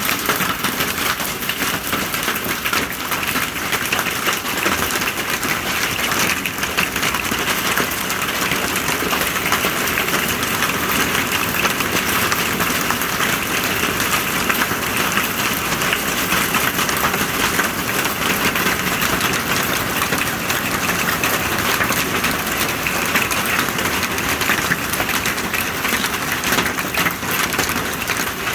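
Hail and heavy rain pelting down in a dense, steady patter of many small impacts.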